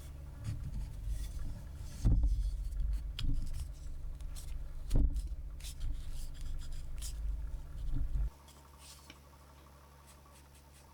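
A few knocks and scrapes of something being handled over a low steady hum; the hum cuts off abruptly about eight seconds in.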